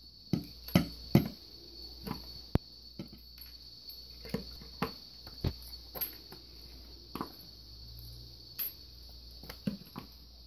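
Hammer tapping small nails through boot leather into a wooden board to punch stitching holes: a run of irregular sharp knocks, roughly one or two a second, loudest in the first second and a half.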